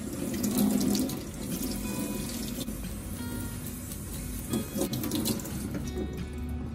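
Kitchen tap running into a stainless-steel sink, the water splashing over a whole fish as it is rinsed and scaled by hand, with a few short clatters a little past the middle.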